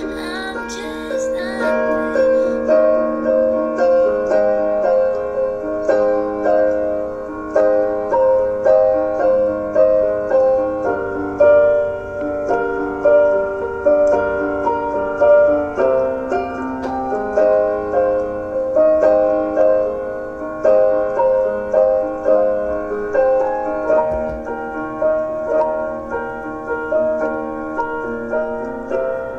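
Piano music: a repeating pattern of notes and chords.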